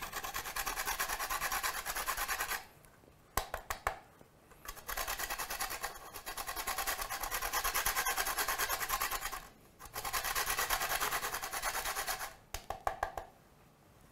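Mandarin peel being grated on a stainless steel box grater: fast rasping strokes in three long runs, with a few short clicks in the pauses between them.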